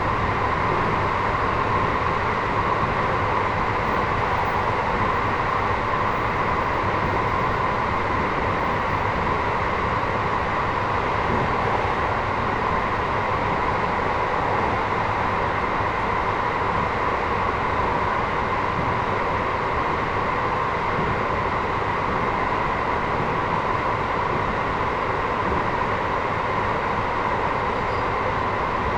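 Running noise inside a JR Hokkaido 721-series electric train's motor car, the Toshiba GTO-inverter car MoHa 721-4202, travelling at a steady speed. It is a steady rumble with a steady hum laid over it, without any rise or fall in pitch.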